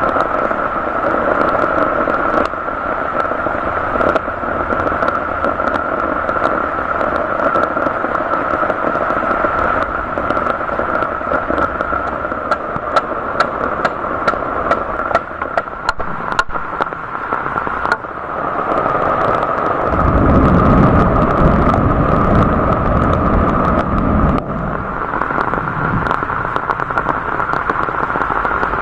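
Heavy rain falling steadily, with many sharp drop taps close by. About two-thirds of the way through, a low rumble swells for a few seconds and fades.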